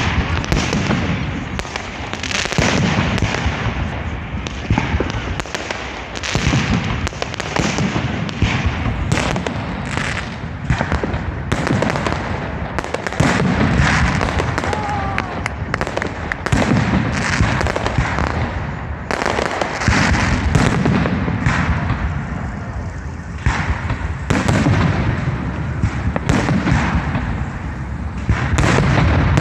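Fireworks display: aerial shells bursting in rapid, overlapping succession, sharp bangs and crackle over deep booms, with no break.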